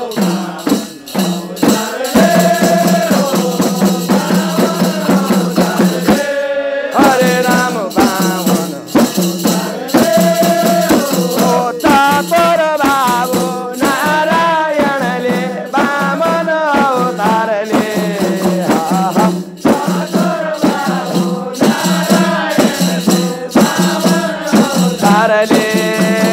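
Khaijadi bhajan music: group voices singing a wavering melody over a steady low drone, driven by khaijadi frame drums whose jingles rattle on every even stroke. The music breaks briefly about six seconds in.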